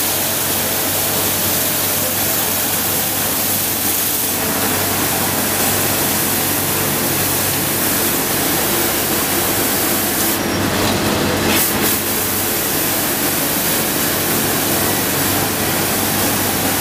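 Street sweeper's engine running with a steady hum while its steel brushes scrub the brick paving, trying to loosen burnt-on remains of aluminium and plastic chairs. A brief louder hiss comes about ten seconds in.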